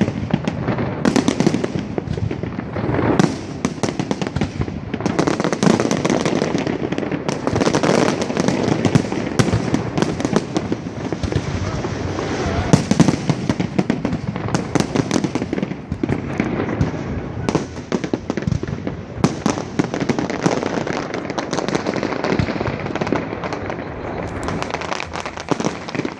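Fireworks display going off: a dense, continuous barrage of bangs, pops and crackling with no pause.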